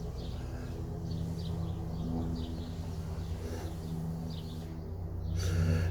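Steady low electrical hum, with small birds chirping faintly in the background. A hiss swells near the end.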